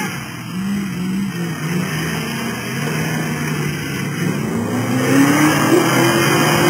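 Engine of a modified Land Rover Defender comp safari car working through deep mud, its revs rising and falling, then climbing higher and louder from about two-thirds of the way in.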